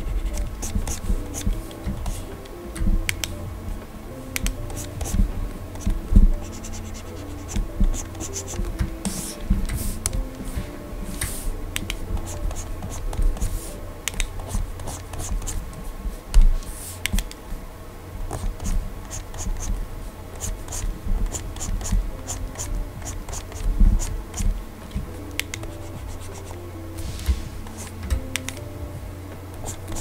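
Plastic stylus tapping and stroking on the glass screen of a Gaomon PD2200 drawing monitor: irregular light clicks and short scratchy strokes as colour is laid in.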